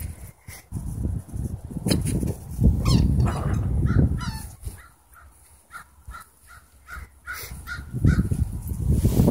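A run of short, repeated animal calls, about three a second, over low rumbling noise that is loudest near the start and again near the end.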